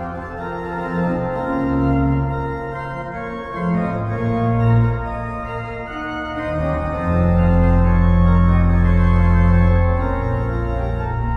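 Organ music: slow, sustained chords that change every second or two, with a long, deep low chord held from about seven seconds in.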